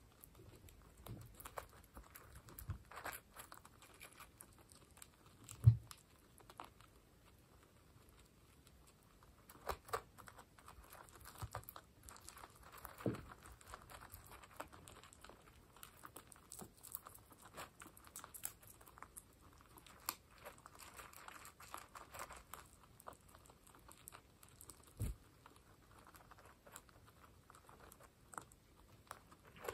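Guinea pigs eating dry pellets from a bowl: faint crunching and chewing with scattered small clicks of pellets. A few louder knocks stand out, the loudest about six seconds in.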